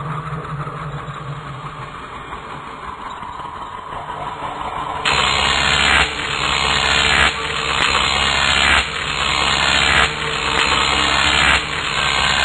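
Soundtrack sound effect: a low steady hum, then about five seconds in a loud, harsh rushing noise starts suddenly and surges in uneven pulses about once a second.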